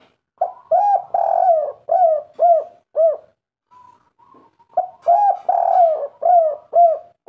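Spotted dove (tekukur) cooing in the kuk-3 song style: two phrases of about six low, arched coos each, the third coo drawn out longer than the rest. The second phrase starts after a pause of about a second and a half.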